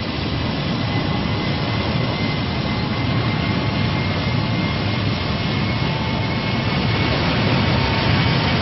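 Steady, jet-like mechanical rumble of a cartoon sound effect, with a faint high whine over it, growing slightly louder.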